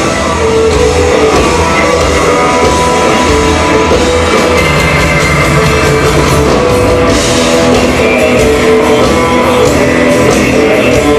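A band playing loud, steady rock-style blues with electric guitar and drums.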